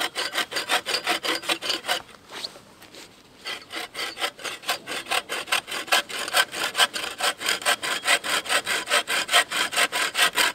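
Compact take-down bow saw cutting through a thin wooden branch by hand in quick back-and-forth strokes, about five a second, with a short pause about two seconds in before the strokes pick up again.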